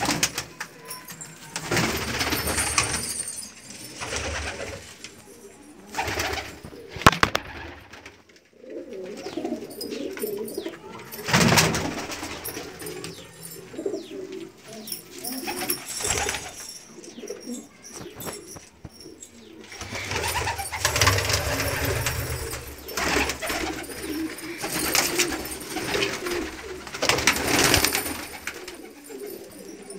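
Domestic pigeons cooing, with repeated bursts of rustling and a sharp knock about seven seconds in.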